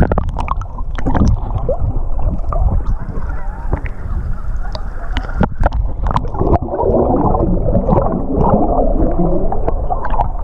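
Water sloshing and gurgling around a snorkeler's camera, with a heavy low rumble and scattered clicks, and a thick patch of bubbling from about six and a half seconds in to near the end.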